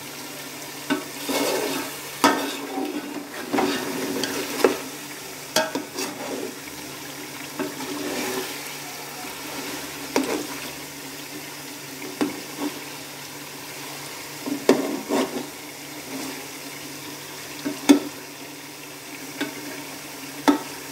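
Mutton pieces sizzling as they fry in their own fat in a metal pot once the water has cooked off. A perforated metal skimmer stirs them, scraping and clinking against the pot at irregular intervals.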